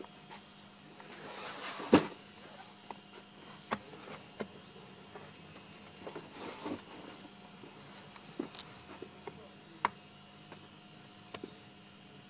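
Handling noise: scattered clicks and knocks of objects being moved about, with brief rustling and one loud knock about two seconds in, over a steady faint hum.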